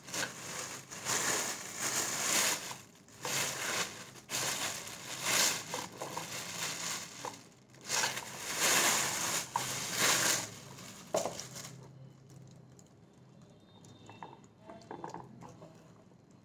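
Thin plastic wrapping bag crinkling and rustling in repeated bursts as it is pulled off and worked free by hand. It dies down about twelve seconds in, leaving only faint handling sounds.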